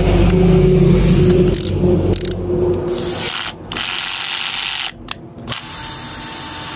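Old brushed Worx cordless drill running on a fresh battery: the motor whirs steadily for about three seconds, then is stopped and run again in a few short bursts. It runs normally, showing the fault was the old dead battery pack.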